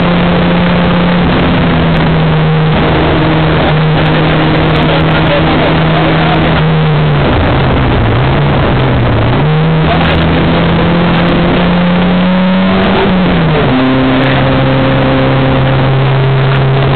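Rally car engine running hard from inside the cabin, loud and harsh. About seven seconds in the revs drop and come back up twice as the car slows through a corner, and near the end they fall sharply and stay lower, as on an upshift.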